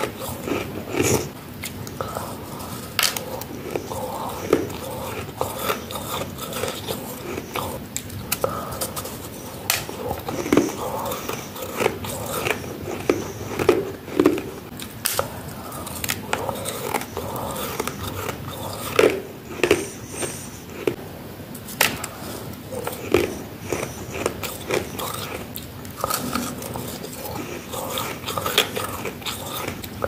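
Crispy, soft freezer frost being bitten into and crunched right at the mouth, with many sharp crunches at irregular spacing.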